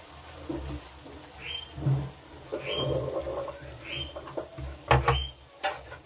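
Potato and cauliflower curry simmering in an open pan after a little water has been added, bubbling unevenly. A short high squeak repeats about once every second, and there are two sharp knocks about five seconds in.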